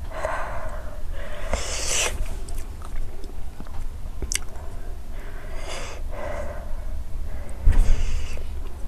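A person breathing hard through the mouth, a handful of loud breaths half a second or so long, in reaction to the burn of an extremely hot chilli chip.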